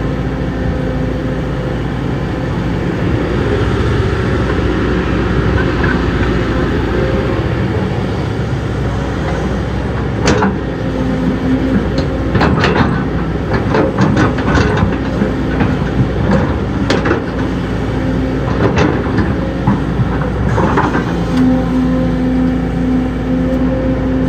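Diesel engine of heavy earthmoving equipment running steadily. A run of sharp knocks and clanks comes through the middle.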